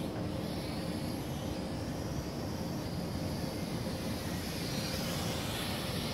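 Kai Deng K-60 X-Fighter quadcopter's motors and propellers whirring steadily as it flies a circuit, heard from the ground, with a faint shift in pitch about five seconds in.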